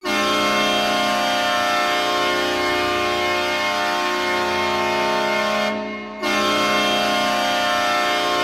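Saint John Sea Dogs hockey goal horn blasting, the arena signal for a home-team goal. It is one steady pitched blast of nearly six seconds, a short break, then a second blast of about two seconds.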